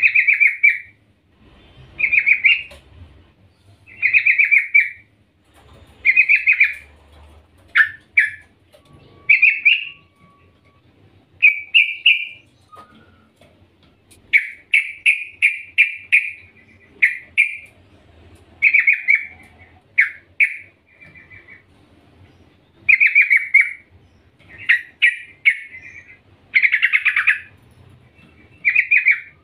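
Female yellow-vented bulbul (trucukan) calling for a male: short phrases of quick chattering notes, repeated about every two seconds, with a longer run of notes about halfway through.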